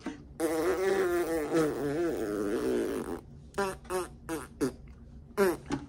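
A woman's buzzing, wavering vocal noise for about three seconds, followed by several short hums or grunts of effort.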